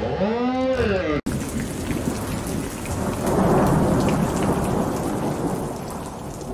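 A V8-swapped Allis-Chalmers pulling tractor's engine revs up and back down, then cuts off abruptly about a second in. After that, a steady rumbling, hissing noise like rain and thunder swells and then slowly fades.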